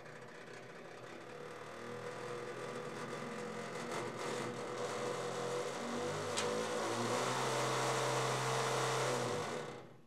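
Small brush-type DC motor from a daisy wheel typewriter spinning its plastic daisy wheel, a steady whir that gets louder as its supply voltage is turned up, then cuts off suddenly near the end.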